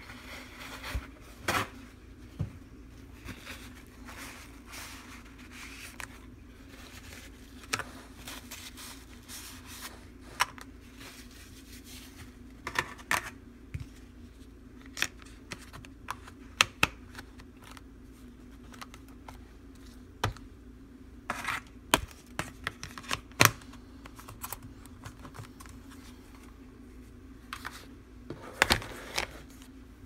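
Plastic food-storage containers and a snap-lock lid being handled: scattered sharp clicks and knocks of plastic as the rims are wiped and the lid pressed on and clipped shut, over a steady low hum.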